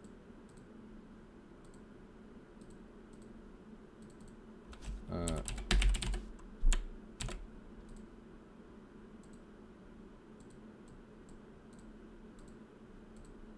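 Computer keyboard typing: a short run of louder keystrokes about five to seven seconds in, with faint scattered clicks the rest of the time.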